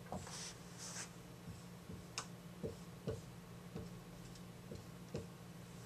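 Dry-erase marker writing on a whiteboard: faint strokes of the tip across the board and light irregular taps as it touches down, over a low steady hum.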